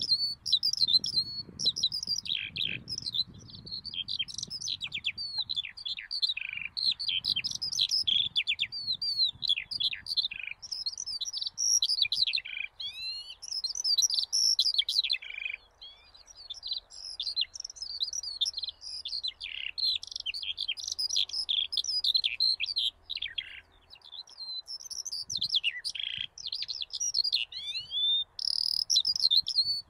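Songbird singing a long, nearly unbroken stream of quick high chirps and trills, with frequent short downward-sweeping notes.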